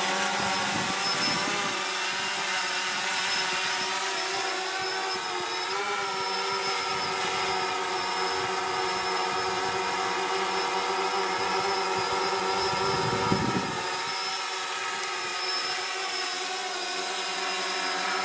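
DJI Phantom 3 quadcopter in flight, its four motors and propellers giving a steady, many-toned buzzing whine. The pitch wavers and shifts about six seconds in.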